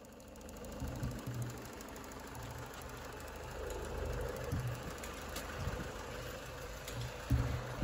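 Peugeot HDi diesel engine idling with a steady light clatter. A couple of low thumps come near the end.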